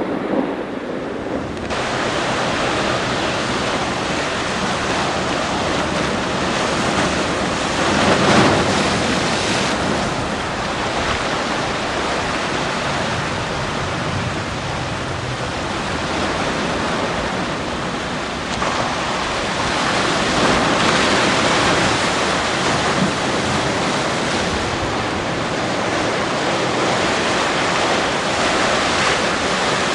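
Ocean surf washing against the shore, a dense steady rush that comes in sharply about two seconds in and swells louder twice, around eight seconds in and again around twenty seconds in.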